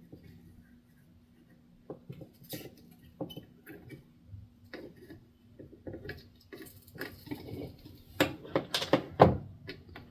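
Scattered small clicks, taps and scrapes of tools working on a circuit board as a heated soldered part is pried off, sparse at first and busier and louder in the last couple of seconds, over a faint steady hum.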